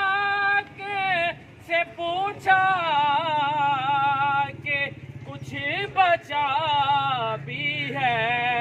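A man singing a devotional chant unaccompanied in a melismatic style: long held, wavering notes broken by short pauses for breath, over a steady low hum.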